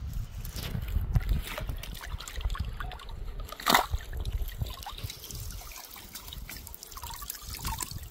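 Lake water trickling and sloshing with scattered small splashes as a fishing net is hauled in, with one sharper splash a little under four seconds in.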